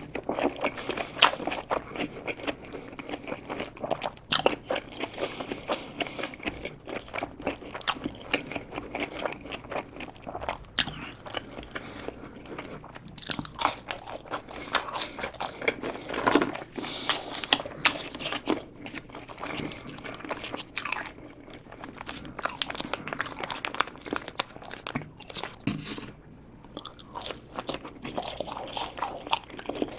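Close-miked eating: a person chewing and crunching mouthfuls of a cheeseburger and French fries, with many irregular sharp crunches and wet chewing sounds.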